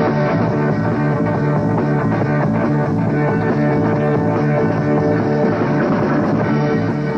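Rock music with guitar, playing at an even loudness.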